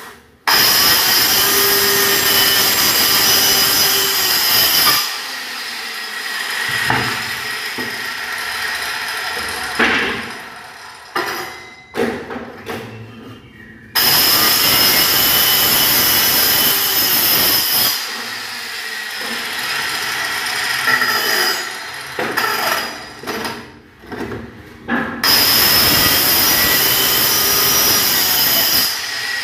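Small handheld electric circular saw cutting through plywood, opening the centre panel of a cabinet door. Three loud cutting passes of about four seconds each, with the saw running quieter and a few knocks between them.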